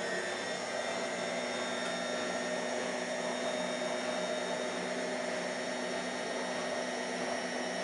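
Hotpoint 1000 De Luxe WM23W Aquarius Ultima washing machine on its final spin, holding its top spin speed of 1000 rpm. Motor and drum whine steadily at one pitch.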